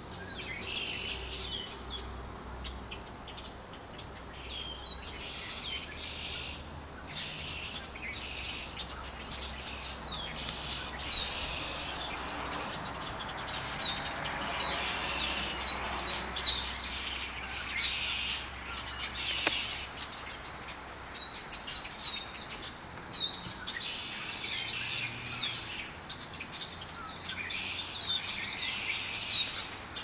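Many birds chirping together: a dense, continuous chorus of short, high, downward-sliding chirps that overlap one another.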